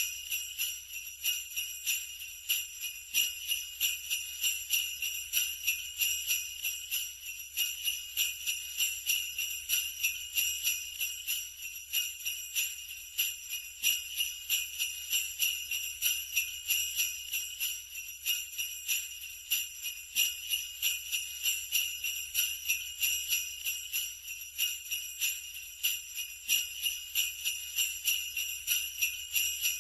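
Sleigh bells shaken in a steady, even rhythm, about three shakes a second, making a continuous bright jingle.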